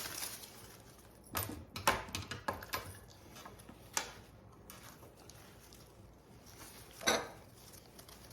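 Handling noises from picking apart a bunch of flower stems at a table: a run of light clicks and taps, a sharp tick about four seconds in, and a louder rustle about seven seconds in.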